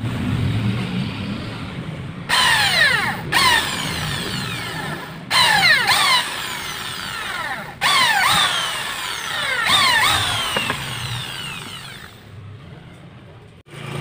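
Corded electric drill boring into a hardwood block, running steadily with repeated short falling whines as the bit cuts. It grows quieter near the end and stops abruptly.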